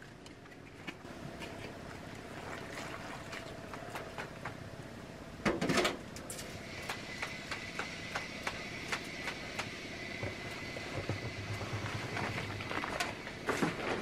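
Hands being washed over a bucket lined with a plastic bag: wet rubbing, splashing and crinkling plastic, with many small clicks and a louder rustle about five and a half seconds in. A faint steady high tone runs under it from about seven seconds on.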